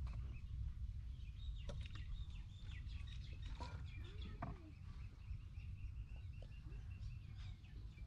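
Steady low wind rumble on the microphone, with birds chirping and a few sharp clinks of a metal spoon against jars and a steel bowl.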